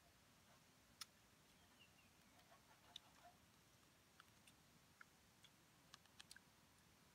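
Near silence, with faint scattered clicks and ticks.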